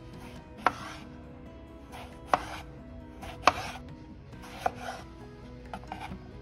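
A knife chopping food on a cutting board: four sharp strokes a little over a second apart, then a few lighter taps near the end.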